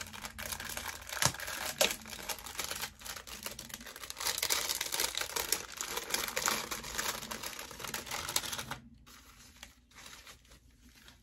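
Packaging of a hair colouring kit being torn open and handled: crackling, crinkling and tearing of wrappers with sharp clicks. It dies down to faint rustling near the end.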